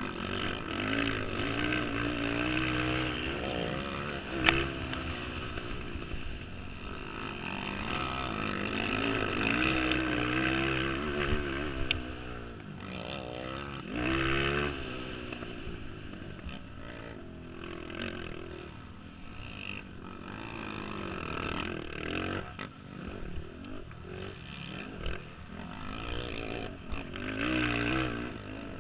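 Several racing ATV (quad) engines running at once, revving up and down so the pitch keeps rising and falling as the machines come and go.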